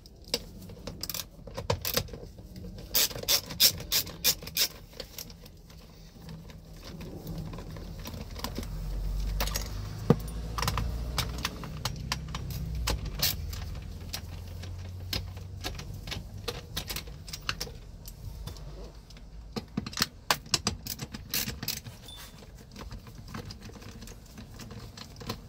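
Hand ratchet with an extension and 10 mm socket clicking in quick runs as nuts and a bolt are loosened, mixed with metal tool clinks. The clicking comes in two spells, near the start and again about twenty seconds in, with a low rumble of handling in between.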